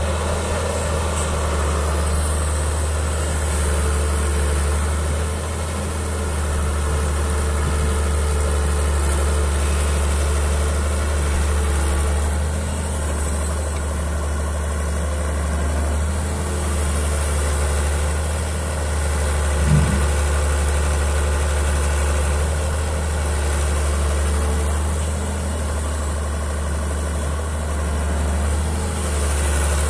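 Hitachi EX100WD wheeled excavator's diesel engine running steadily as it digs soil with its bucket, with a deep low hum. One brief thump about twenty seconds in.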